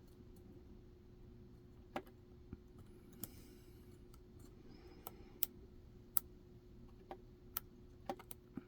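Lock pick working the pins of a Schlage pin-tumbler cylinder re-pinned with tapered serrated security pins: about ten small sharp clicks at uneven intervals, the pins clicking as they are picked.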